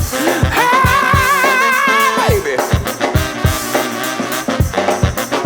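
Upbeat funk-pop music with a steady drum beat. About a second in, a long held note with vibrato rides over it for just over a second.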